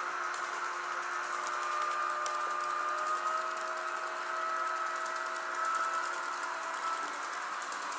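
HO-scale model electric train running: the locomotive's small motor gives a steady thin whine that rises slightly in pitch, over light rapid clicking and rattling of the wagon wheels on the track.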